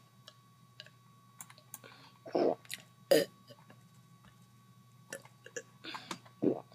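A person's deliberate burps: two short ones close together about two and a half seconds in and another near the end, with small mouth clicks between them.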